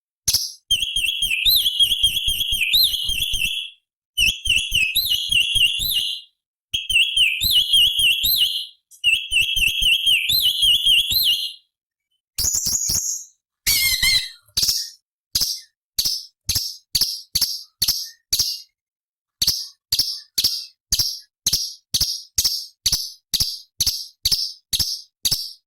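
Cucak cungkok leafbird singing: four runs of rapid, warbling whistled phrases, each cut off abruptly. Just past the middle comes a quick falling burst. It then gives a long string of short, sharp high notes, about two to three a second.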